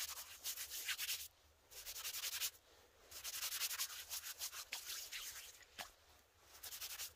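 Hands scrubbed together with a handful of snow, a rapid rubbing scrape in several bouts with short pauses between.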